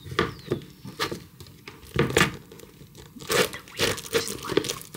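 Paperback books handled on a wooden shelf: irregular rustles, scrapes and light knocks as a book is pulled out from the row and the others are pushed along.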